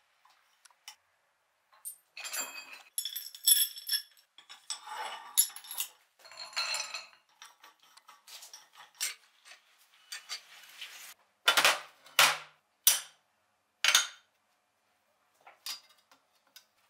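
Steel parts of a leg vise and hand tools clinking, rattling and scraping against each other as they are fitted, with an adjustable wrench on a nut. This is followed by four sharp metal clanks in about two and a half seconds, then a couple of faint ticks.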